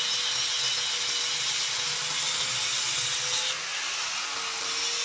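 Steady hissing noise of a metalworking machine or power tool at work, with a faint steady hum under it. The sound changes slightly about three and a half seconds in.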